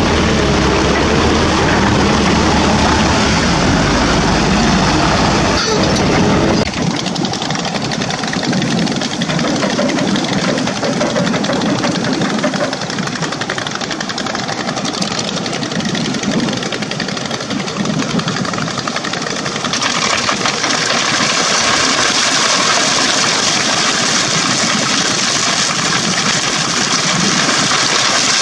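Diesel engines of a dump truck and a Keihatsu 921C crawler excavator running steadily. A deep close rumble stops abruptly about seven seconds in, leaving a lighter, more distant engine sound, and a higher hiss joins it about twenty seconds in.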